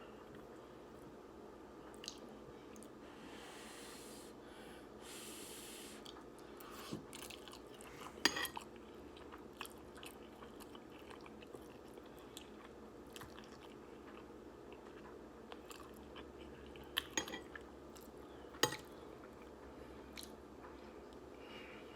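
Close-miked eating of instant ramen noodles: faint chewing, with a breathy slurp-like hiss a few seconds in and a few sharp clicks, the loudest about 8 seconds in and twice more near the end.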